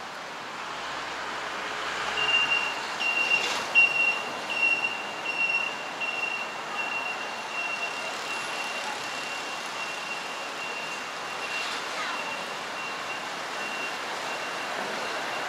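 Street traffic, with a high electronic beep that starts about two seconds in and repeats roughly twice a second. The beep is loudest for the first few seconds and then carries on more faintly.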